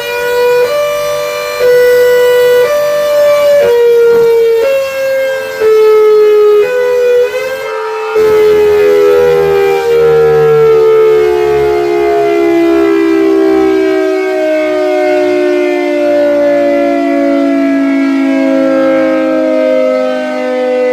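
Cold War era Secomak GP8 air raid siren sounding, its pitch stepping up and down about once a second. About eight seconds in it falls into one long, slow wind-down, the pitch sinking steadily as the rotor coasts to a stop.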